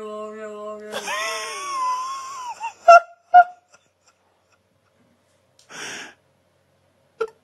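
An animal's drawn-out wailing call trails off. It is followed by a harsh, wheezing cry with a wavering pitch, then two short, loud cries about half a second apart, and a brief breathy gasp.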